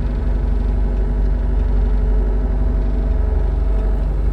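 Farm machine engine idling steadily, a constant low rumble.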